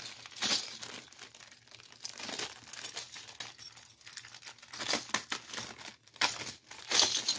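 Packaging crinkling and rustling in irregular bursts as an item is handled and unwrapped, with the loudest crinkles about half a second in and near the end.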